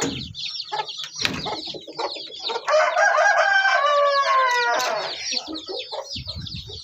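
A crowd of week-and-a-half-old chicks peeping without a break. A rooster crows once in the middle, for about two and a half seconds. There are a couple of sharp knocks near the start.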